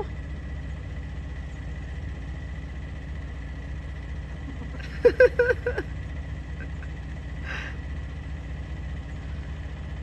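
Steady low hum of a car engine idling, heard from inside the parked car. About five seconds in, a short, loud voice-like sound cuts across it.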